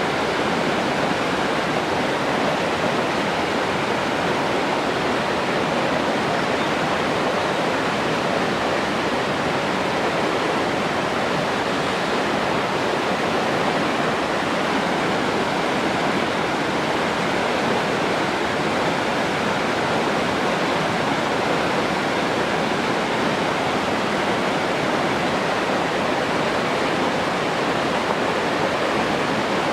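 Steady, unbroken rush of running water, with no separate splashes or drops standing out.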